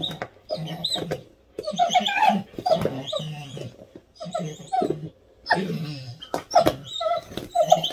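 Dog whining in repeated bursts, about one every second or so, while mouthing a rubber ball, with a few sharp clicks between.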